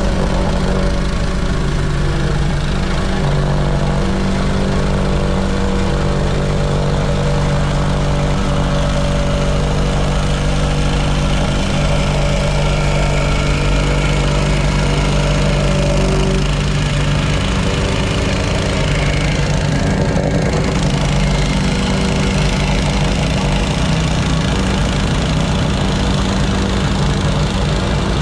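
Small gas engine of a compactor running steadily while tamping the gravel base, with a rapid pounding pulse under the engine note; the note shifts slightly partway through.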